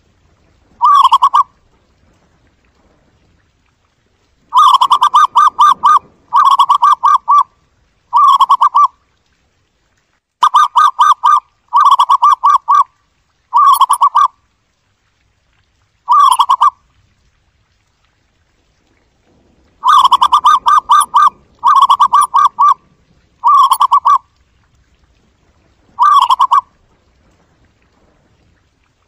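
Zebra dove song: about a dozen short phrases of rapid, staccato cooing notes, each phrase a quick run of pulses lasting under a second and a half, separated by brief pauses.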